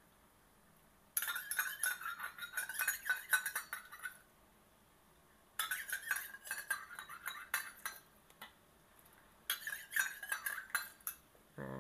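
A spoon scraping and tapping against a small bowl in quick clinks, in three spells of a few seconds each, as seasoning is knocked out of the bowl into a wok.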